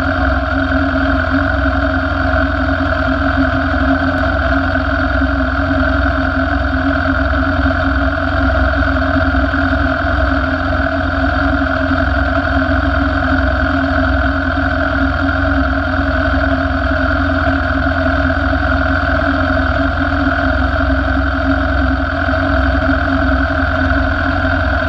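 Sport motorcycle engine idling steadily, heard close up from a camera mounted on the bike, with no revving.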